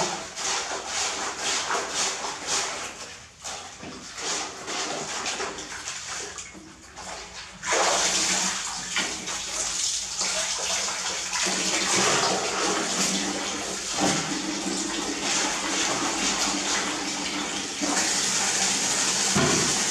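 Irregular splashing and sloshing of water as a pillow is scrubbed by hand in a metal basin of soapy water. About eight seconds in, a wall tap starts running steadily into a plastic bucket, a louder, constant hiss that lasts the rest of the time.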